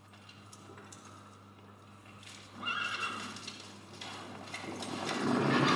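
A horse whinnies briefly about two and a half seconds in. Then its hoofbeats build up louder and louder as it sets off, from a film soundtrack.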